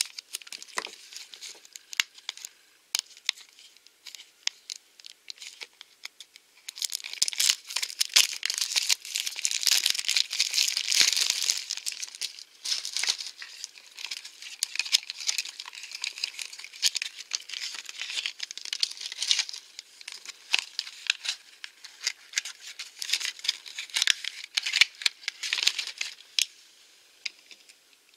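Plastic toy blind-pack packaging being cut with a craft knife, then torn open and crinkled by hand: scattered sharp clicks at first, then a long spell of crackling from about seven seconds in, and a shorter spell near the end.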